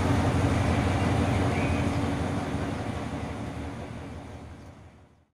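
Alsthom diesel-electric locomotive's engine running with a steady low rumble, which fades away over the last three seconds.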